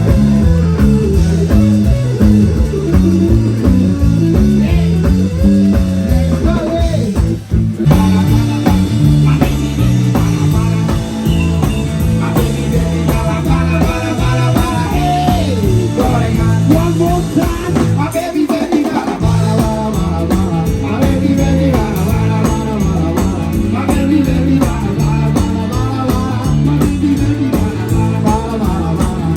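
Background music with a steady beat, guitar and a singing voice, with a brief break about seven and a half seconds in.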